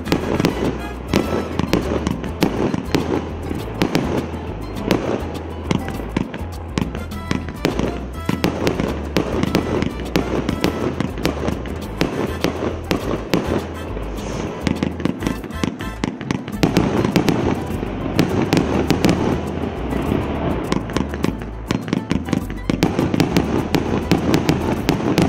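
Multi-shot consumer fireworks cake of 1.25- and 1.5-inch tubes firing continuously: rapid launches and bursting shells, several bangs a second with crackle. It grows louder and denser in the last few seconds.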